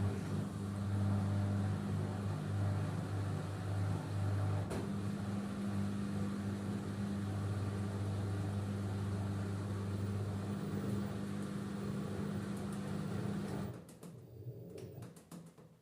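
LG F10B8MD front-loading washing machine running in its final spin on the cotton programme, a steady deep hum. About fourteen seconds in it cuts off abruptly, leaving a few faint clicks.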